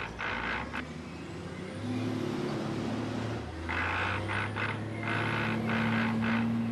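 Truck engine running as the truck pulls away, a steady low drone that comes in about two seconds in and grows louder.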